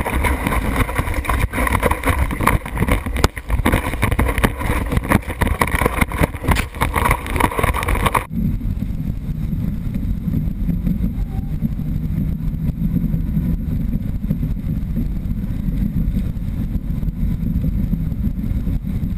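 Kiteboard ride heard from an action camera mounted down by the board: rushing wind and water with the choppy slap and spray of the board across the water. About eight seconds in it changes abruptly to a steady low wind rumble heard from a camera mounted on the kite.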